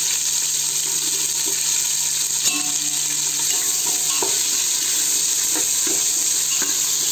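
Sliced onions, garlic and fenugreek leaves sizzling in hot oil in an aluminium pot, stirred with a metal ladle that knocks against the pot about two and a half seconds in and lightly a few times after.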